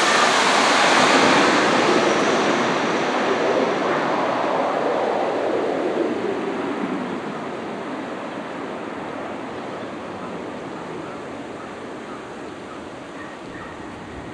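Twin-engine wide-body jet airliner landing, just past low overhead. The roar of its engines is loudest at the start and fades over about seven seconds to a steady, more distant rumble as it flies down the runway to touch down.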